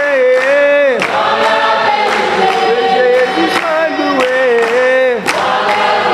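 Voices singing a Christian praise song, holding long notes that drop in pitch at the ends of phrases, over a steady beat about twice a second.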